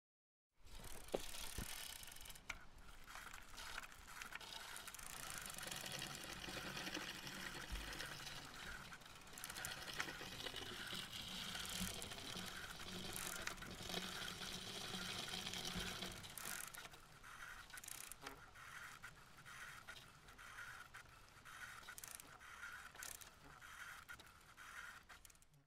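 A bicycle being ridden on a paved street: road and wind noise with the bike's frequent small rattles and clicks. It gets quieter about two-thirds of the way through.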